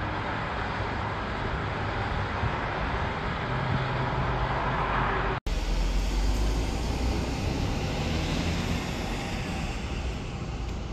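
Steady noise of road traffic. It breaks off sharply about halfway and gives way to the heavier low rumble of a moving vehicle.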